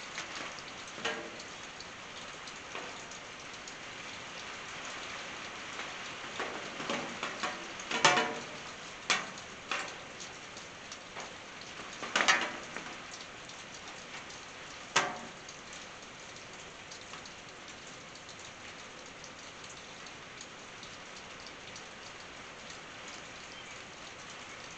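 Steady rain falling on a tin roof, an even patter, with a scatter of louder single drop hits landing between about one and fifteen seconds in, the loudest near eight, twelve and fifteen seconds.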